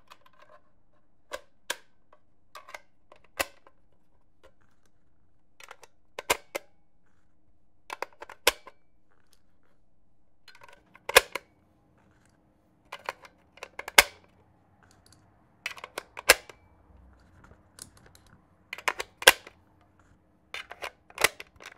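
Sharp metallic clicks and clacks of historical firearms' mechanisms being worked by hand, such as hammers and actions cocked and released. They come as single clicks and quick clusters with short quiet gaps, a dozen or so in all, the loudest around the middle and near the end.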